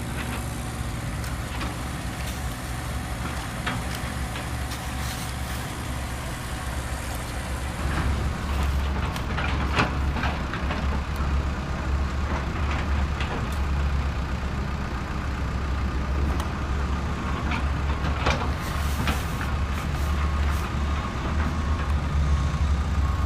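Heavy diesel engine of construction machinery running steadily, getting louder about eight seconds in, with occasional knocks and clanks.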